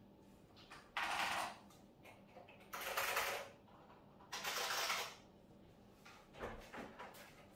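Clicky vintage mechanical keyboard being typed on in three short fast bursts, then a few separate keypresses near the end.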